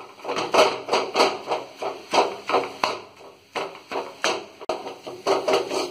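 Flat metal spatula chopping kothu parotta against a heavy metal pan: sharp, uneven metallic clanks, about three a second, as the parotta, egg and vegetables are minced and roasted.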